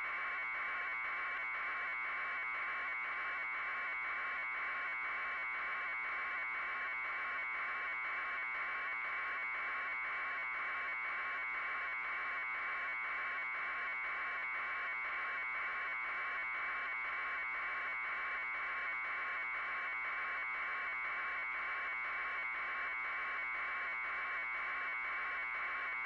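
A steady electronic buzz with a fast, even flutter, unchanging in level and pitch.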